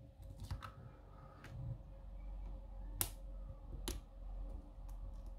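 Scattered small clicks and ticks of a hook pick and tension tool working the pins inside a worn American Lock Series 200 padlock, about five sharp clicks at irregular intervals over low handling rumble.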